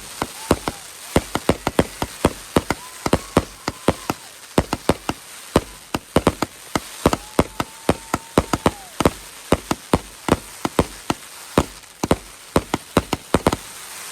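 A large consumer fireworks cake going off: a rapid, irregular string of sharp bangs and cracks, several a second without a break, with a few whistles under them, each rising, holding and falling away.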